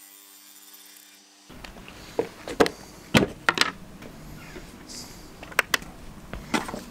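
Background music for about the first second and a half. Then a run of sharp, short clicks and knocks as a plastic measuring cup, a stirring stick and a digital scale are handled on a wooden tabletop, while resin glue is being set up for measuring.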